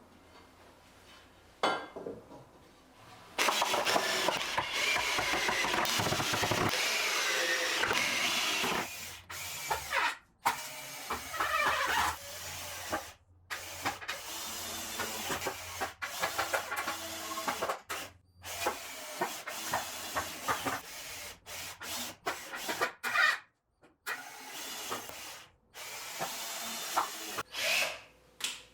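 Handheld electric power tool running in short bursts, its motor pitch wavering as it speeds up and slows down, starting and stopping abruptly many times.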